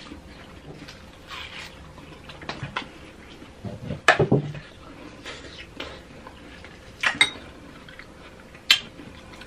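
Close-miked eating sounds: juicy watermelon bites and chewing, with sharp clicks and knocks of a metal utensil and glass bowl. The loudest knock, with a low thud, comes about four seconds in; two more sharp clinks follow about seven and nine seconds in.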